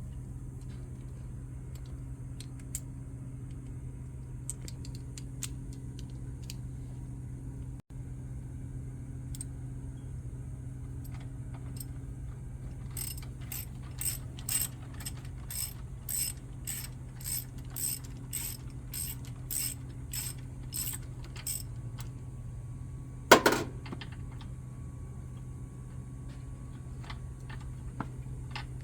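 Ratchet wrench clicking in a steady run of about two clicks a second as it works the screws of a car's air-filter housing, followed by one loud clunk; a steady low hum underneath.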